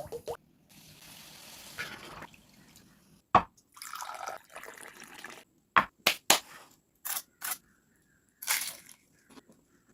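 Kitchen food-preparation sounds: a string of sharp clicks and taps with a few brief rustling or splashing stretches.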